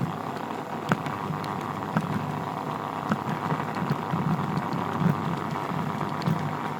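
G-scale garden model train running along its track: a steady motor and wheel hum with occasional light clicks.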